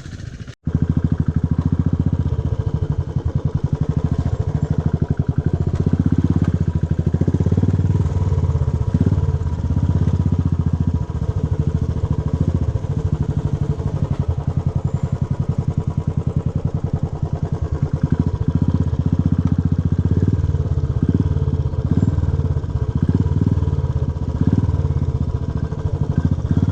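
Motor vehicle engine running steadily while under way, with a rapid low firing pulse; the sound drops out for a moment about half a second in.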